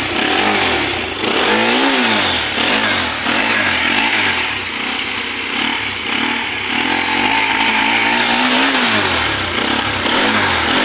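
Bajaj Pulsar NS200's single-cylinder engine running through its stock exhaust, revved in a string of quick throttle blips. The pitch rises and falls about once every second or so, with short settles in between.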